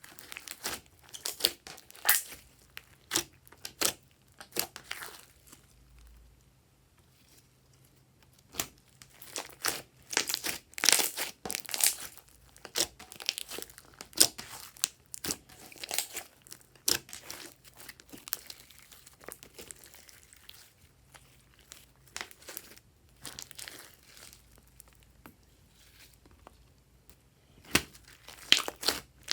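Glossy slime being worked by hand, giving irregular sticky clicks and pops, busy in bursts with a sparser stretch in the middle.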